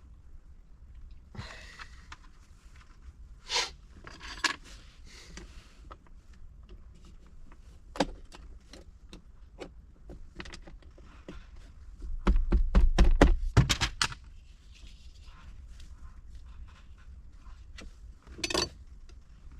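Plastic interior trim on a vehicle being handled and pressed back into place: scattered clicks and scrapes, with a loud run of quick knocks and thumps about twelve seconds in.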